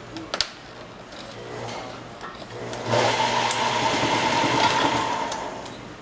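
Restored 70-year-old wiring-harness taping machine: a couple of sharp clicks as the harness is handled, then about three seconds in the tape head starts up and runs at speed with a steady whine. It slows and dies away shortly before the end.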